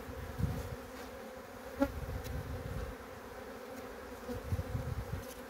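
Honeybees humming steadily from an open hive as the frames are worked, with a single brief knock about two seconds in. The colony is a weak one, dwindled going into winter.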